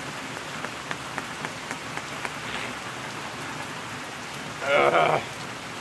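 Pouring rain falling steadily, with a few sharp taps in the first couple of seconds. A man's voice is heard briefly near the end.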